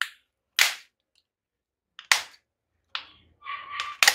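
Garden shears cutting, making about five sharp snaps spread roughly a second apart.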